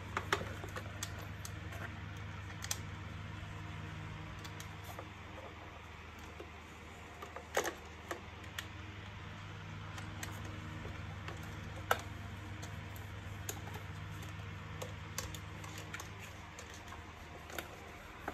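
Scattered plastic clicks, taps and knocks as the vacuum cleaner's plastic housing and internal wiring are handled, over a steady low hum.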